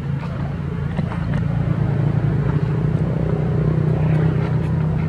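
A motor vehicle's engine running steadily, a low hum that grows louder over the first two seconds or so, with a few faint clicks over it.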